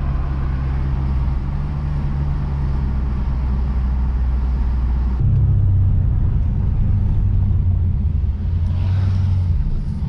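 Lexus RC F's 5.0-litre V8 running at low, steady revs while driving, with road noise underneath. About halfway through, the engine note steps up in pitch as the revs change.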